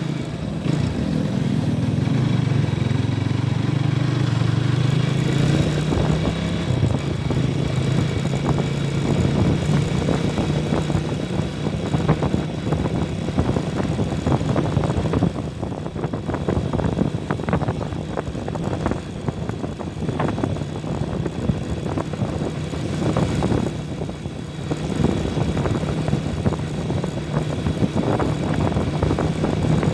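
Honda Tiger motorcycle's single-cylinder four-stroke engine running while the bike is ridden. There is a steady hum for the first few seconds, then road and wind noise with many short crackles and knocks from about five seconds in.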